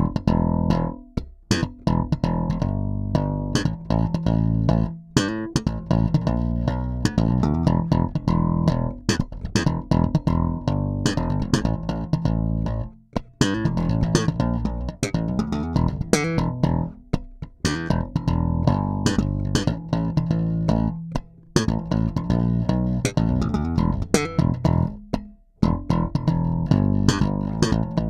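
Schecter Stiletto Extreme-5 five-string electric bass with Ernie Ball Regular Slinky strings, played solo and recorded dry and direct with no EQ or compression, its onboard preamp set flat. It plays a continuous line of many quickly plucked notes with a few short breaks.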